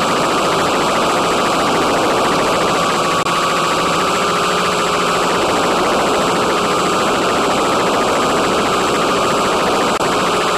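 Steady whine of an FPV model aircraft's electric motors and propellers under a heavy hiss of radio static, heard through the onboard video link's audio. The whine shifts slightly in pitch a few times, and the sound drops out for an instant about three seconds in and again near the end.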